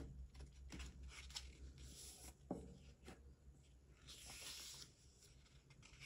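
Faint paper handling: sticker-book pages flipped and a paper sticker pressed onto a planner page. It comes as small ticks and rustles, one sharper tick about two and a half seconds in, and a longer rustle about four seconds in.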